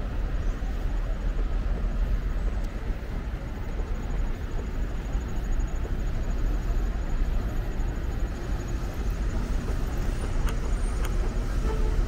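City street ambience: steady road traffic noise with a strong low rumble.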